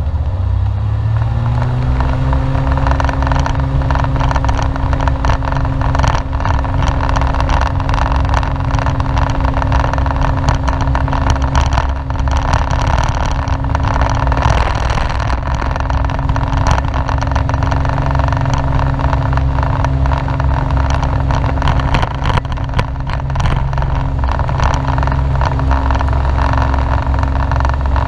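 Light airplane's piston engine and propeller, heard inside the cockpit, rising in pitch as the throttle comes up to full takeoff power in the first couple of seconds, then running steadily at full power through the takeoff roll.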